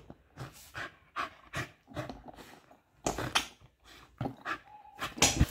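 Pomeranian puppy breathing hard in short, noisy breaths, a few a second and unevenly spaced, loudest near the end.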